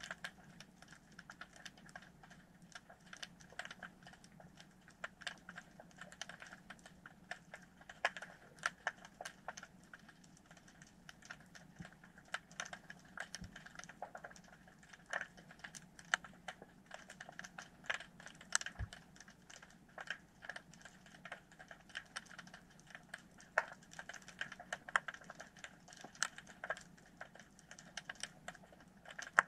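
Dense, irregular underwater clicking and crackling, like fast uneven typing, typical of snapping shrimp on a shallow rocky reef, over a faint steady low hum.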